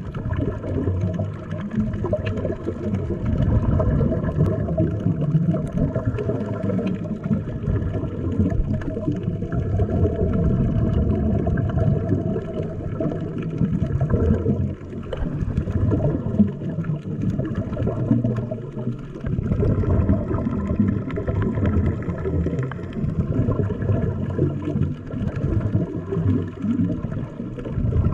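Underwater sound picked up through a camera housing: a steady, muffled low rumble with the bubbling and gurgling of scuba divers' exhaled regulator bubbles.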